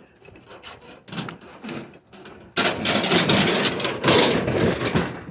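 Metal fluorescent light fixtures scraping and rubbing against each other as they are slid into a stack, with light knocks; the scraping turns loud about halfway in.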